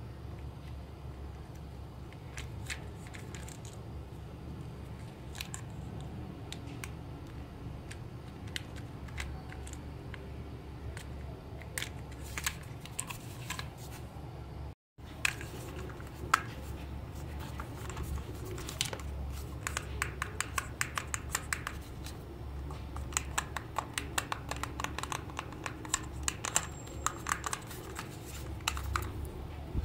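Small plastic clicks and taps from handling a toy RC transmitter: its casing halves being pressed together, then its joysticks and buttons being worked. The clicks come faster and louder in the second half, over a steady low hum.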